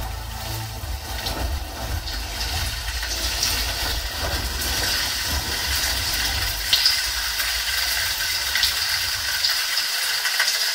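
Live electronic music from a stage keyboard/synthesizer: a steady hissing noise wash with faint held tones over a low bass drone, the bass dropping away near the end.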